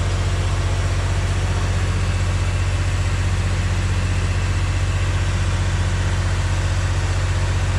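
Hitachi EX3600 mining excavator's 16-cylinder diesel engine running steadily, a loud, even low drone with no change in speed.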